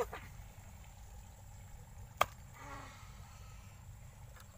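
A single sharp knock about two seconds in, over faint steady background noise.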